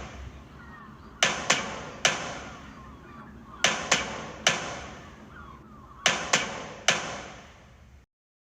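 Sharp knocks in groups of three, each ringing briefly, repeating about every two and a half seconds, with faint chirping behind them. The sound cuts off abruptly about eight seconds in.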